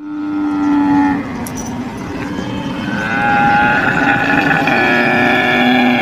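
Camel bellowing: one long, rumbling call that runs on without a break, with a higher wavering tone joining about three seconds in.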